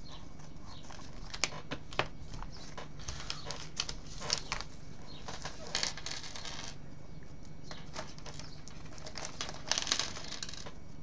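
Small clear plastic parts bags crinkling and rustling as they are opened and handled, with scattered light clicks and taps of small plastic pulleys tipped onto a wooden table.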